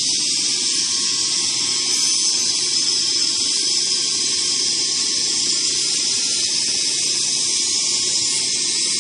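A machine with a single saw blade and four spindles running steadily, giving an even, high hiss with a faint steady hum under it.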